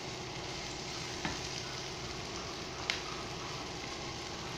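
Sliced onions sizzling steadily in butter in a nonstick frying pan as they are stirred with a spatula, with two sharp clicks of the spatula against the pan, about a second in and again near three seconds.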